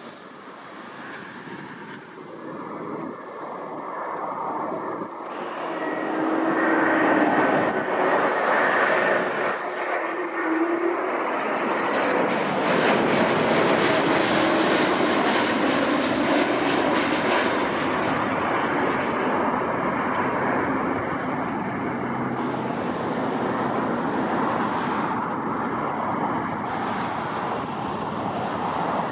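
Airliner engines passing: the noise builds over the first several seconds, then holds loud with a high thin whine before easing slightly near the end.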